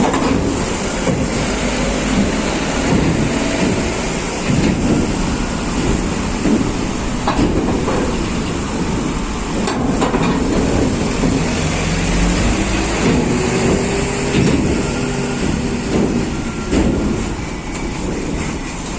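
Truck engine running with a continuous low rumble and a few sharp knocks, as the truck drives off a ship.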